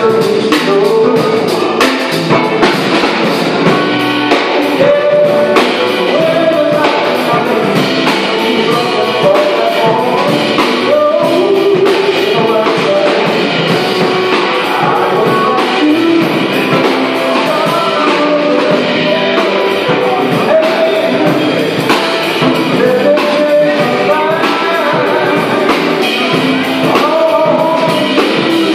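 Live blues-rock band playing: electric guitars over a drum kit keeping a steady beat.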